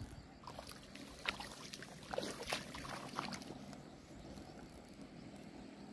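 Faint water lapping with a low, even wash. A few sharp clicks and taps fall between about one and three seconds in.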